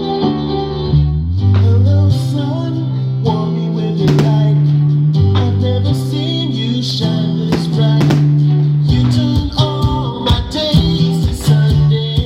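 Music led by guitar over a moving bass line, with sharper percussive strikes setting in about three quarters of the way through.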